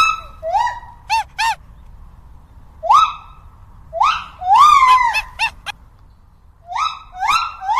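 Monkey calls: groups of rising hoots and quick, rising-then-falling yelps, coming in short bursts with pauses between.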